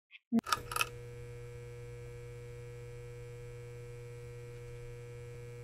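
Electrical buzz of a neon sign switching on: a few crackling clicks, then a steady mains-frequency hum.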